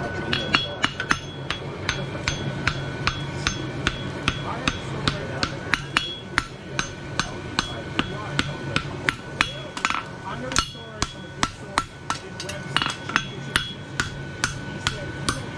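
Farrier's forging hammer striking a steel horseshoe on an anvil in a steady run of blows, about two to three a second, each with a bright metallic ring; the blows break off briefly about two-thirds of the way through, then resume.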